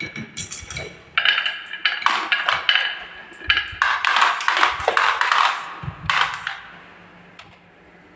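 Marbles rolling and clattering down a wooden marble run, with rapid clicks and knocks as they hit the track, dying away over the last couple of seconds.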